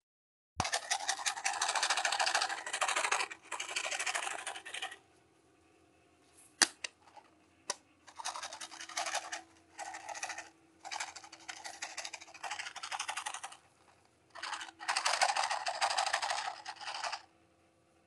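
Scratchy rustling noise in bursts of one to three seconds with short gaps, and two sharp clicks in a quieter stretch around the middle; a faint steady hum underneath.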